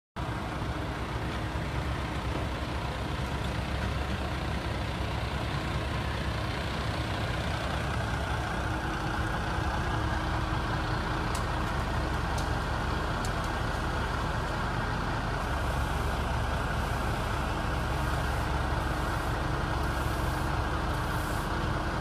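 Compact excavator's diesel engine running steadily, a low rumbling drone, with a few faint clicks about halfway through.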